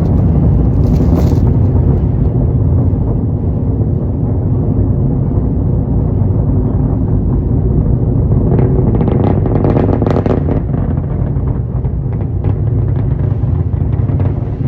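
SpaceX Falcon 9 rocket's nine Merlin engines at launch, heard as a loud, continuous low rumble. Brief flares of crackle come about a second in and again a little past the middle.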